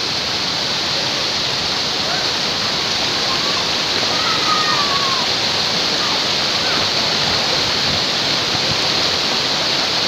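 Waterfall and the rocky stream below it, a steady rush of falling and running water.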